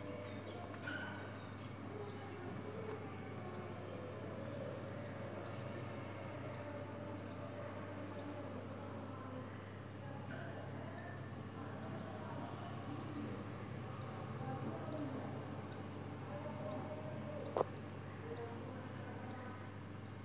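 A high chirp, falling in pitch, repeated evenly about every two-thirds of a second, over softer scattered chirps and a steady low hum. One sharp click about three-quarters of the way through is the loudest sound.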